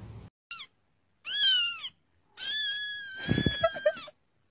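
Kitten meowing three times, high-pitched: a very short meow, a longer one that rises and falls, then a long drawn-out one with a brief low thud under it partway through.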